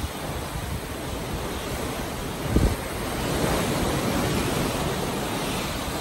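Rough sea churning and rushing along a moving ship's hull, with wind on the microphone. The rush swells a little about halfway through, and there is a brief low thump about two and a half seconds in.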